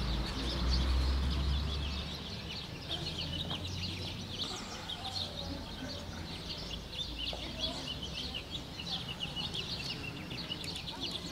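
Many small birds chirping together in a dense, continuous chatter, with a low rumble over the first two seconds.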